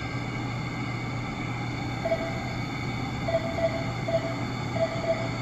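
Steady hum of medical equipment with several constant tones, and short electronic beeps, all at one pitch, sounding several times in the second half.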